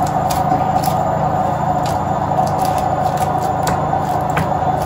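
Steady background hum with irregular short sharp clicks or scrapes, a few a second.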